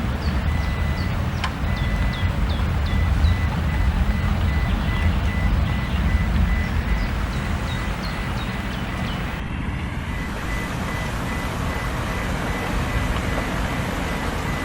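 Steady rain falling, a continuous hiss over a low rumble. Short high falling chirps repeat through roughly the first two-thirds, and a faint steady beeping tone runs beneath.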